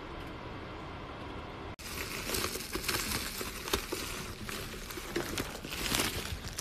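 A Fujihome mini ceramic fan heater's fan running steadily. Then, after a cut nearly two seconds in, plastic bubble wrap crinkles and crackles with many small pops as it is handled and pulled off.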